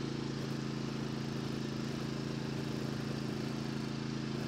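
An engine idling: a steady, even low hum that holds one pitch throughout.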